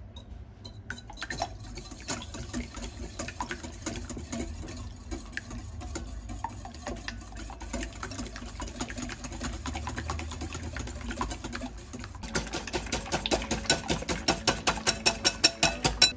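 Wire balloon whisk beating two raw eggs in a glass bowl: a quick, continuous clicking and tapping of the wires against the glass. About twelve seconds in the strokes turn louder and more even, at about five a second.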